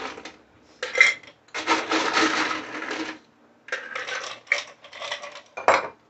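Ice cubes scooped and dropped into a stainless-steel cocktail shaker cup: a run of clinks and rattles, with a longer rattle about two seconds in and a sharp clink near the end.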